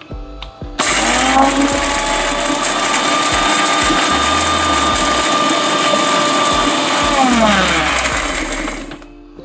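Electric mixer grinder running once, coarsely grinding dry whole spices (black peppercorns, cumin, coriander seeds, dried red chillies). The motor whine rises as it starts about a second in, holds steady, and falls away as the motor winds down near the end.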